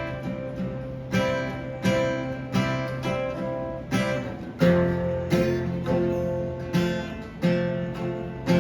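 Acoustic guitar strumming chords at a slow, steady pace, about one strum every two-thirds of a second: the instrumental intro to a worship song.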